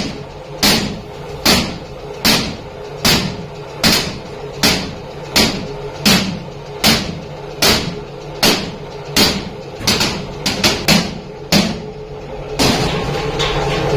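Hand hammer blows on sheet iron, struck steadily about once every three-quarters of a second, then a few quicker strikes before they stop. Just before the end a steady machine noise starts.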